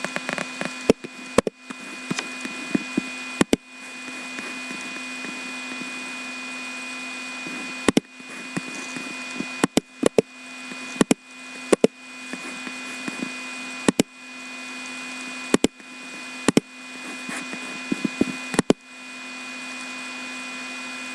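Scattered single sharp clicks of a computer mouse, a dozen or so at irregular intervals. Under them runs a steady electrical hum with a faint high whine.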